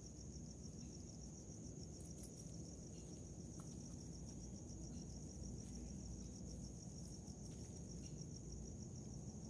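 Cricket chirping: a steady, high-pitched, rapidly pulsing trill that does not let up, over a low rumble.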